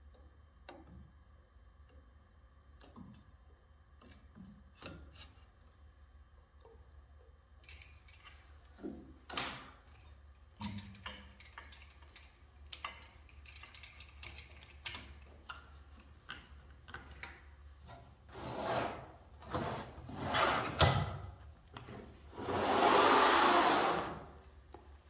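Clicks, scrapes and knocks of metal machine parts being handled as the fence and table parts of a Felder CF 741s shaper are refitted. The sounds grow busier and louder about halfway through, ending with several louder knocks and a rushing noise lasting about a second and a half near the end, which is the loudest sound.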